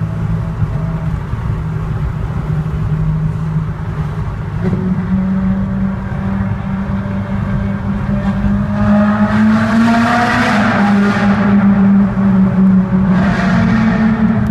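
Ferrari 458's V8 engine being revved hard in a tunnel, over a steady engine drone. Two loud bursts of revving with rising pitch come about nine seconds in and again near the end.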